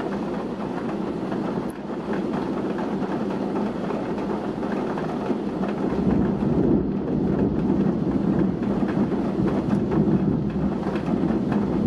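Heavy rain pouring down in strong, gusting wind: a dense, steady rush that grows louder about six seconds in.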